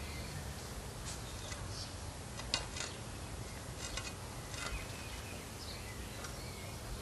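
Outdoor background with a steady low rumble and a few faint, short bird chirps, broken by several sharp clicks or knocks, the loudest about two and a half seconds in.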